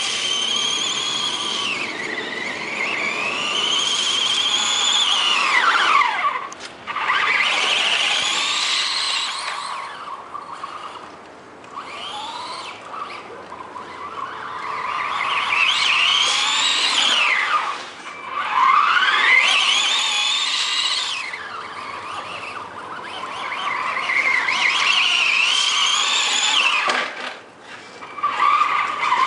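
Electric radio-controlled truck's motor and drivetrain whining, rising and falling in pitch over and over as it speeds up and slows down, dropping off sharply several times.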